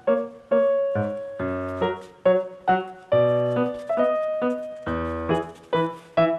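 Background piano music: a melody of struck notes that ring and fade, several a second, with low bass notes under some of them.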